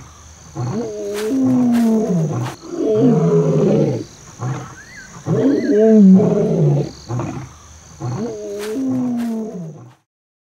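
Lion roaring in a series of deep calls, each about a second long and falling in pitch, with short pauses between them. It cuts off suddenly near the end.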